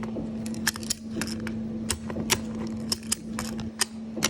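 Ratchet strap buckle being ratcheted by hand: the pawl clicks sharply and irregularly, often in quick pairs, as the handle is pumped to tighten the strap. A steady low hum runs beneath.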